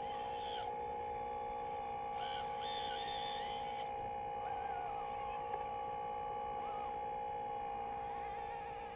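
RC model excavator's electric hydraulic pump whining steadily, with short wavering higher tones now and then as the load on the pump changes.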